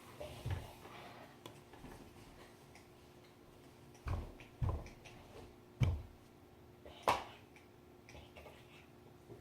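Wood fire in a fireplace burning with faint crackling, broken by a few dull thumps and one sharp pop about seven seconds in.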